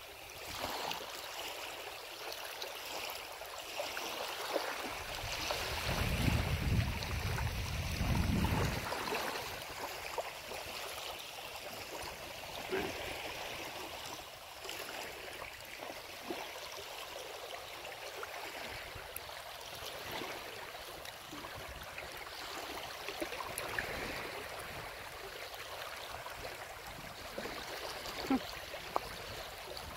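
Steady hiss of wind-driven horizontal rain, with a strong low rumble of wind buffeting the microphone from about six to nine seconds in and a few sharp ticks.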